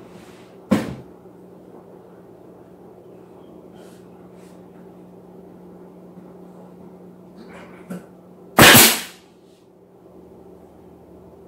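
A sharp knock about a second in, then a louder, half-second bang or clatter near the end, over a steady low hum.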